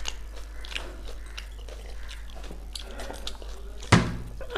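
Chewing and small mouth clicks of people eating chow mein noodles by hand, with one sharp click near the end.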